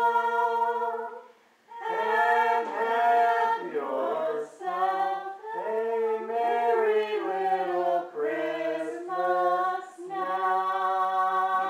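A small group of voices singing a Christmas carol unaccompanied, holding long, steady notes between short pauses for breath.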